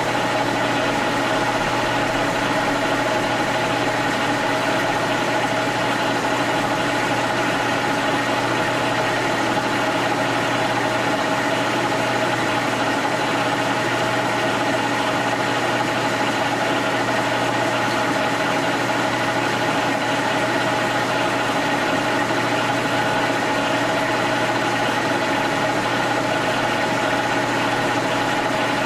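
1942 Brown & Sharpe No. 2 heavy milling machine running steadily while drilling a hole: a constant motor and gear hum with several steady tones.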